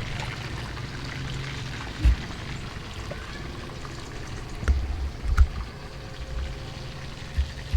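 Hot oil sizzling steadily as chicken drumsticks deep-fry, with a few low thumps and clicks.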